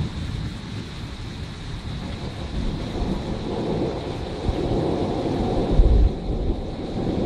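Thunder rumbling over steady rain. The rumble builds about a third of the way in and is loudest with a deep boom a little before the end.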